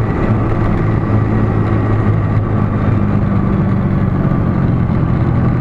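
Steady engine drone and road noise of a car cruising on a highway, heard from inside the moving car.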